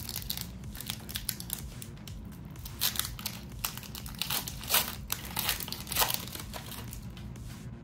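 Foil booster-pack wrapper crinkling and tearing as a pack of Pokémon cards is opened, a run of sharp crackles that is densest around the middle.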